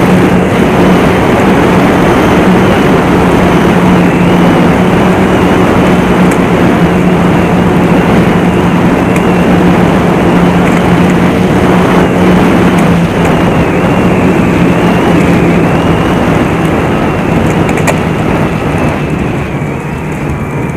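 Snowmobile engine and track running steadily at cruising speed, a constant engine drone over a dense rush of noise. Near the end the engine note drops a little and the sound eases off as the throttle comes back.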